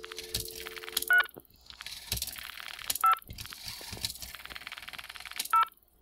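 Steady two-note dial tone heard through the handset, cutting off about a second in when the first digit registers. The 1960s model 500 rotary telephone's dial then whirs and clicks as it is wound and runs back. Each of three digits ends in a short two-note touch-tone beep, made by the pulse-to-tone converter, which shows the rotary phone is dialling successfully on the modern line.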